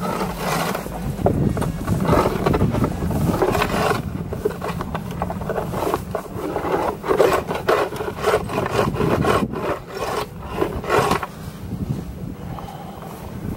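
Irregular scraping and brushing strokes as snow is cleared from a beehive's bottom-board entrance.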